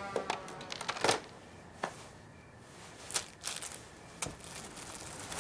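A few scattered soft clicks and light rustles, the loudest about a second in: small handling noises of someone moving about and fiddling with objects in a quiet room.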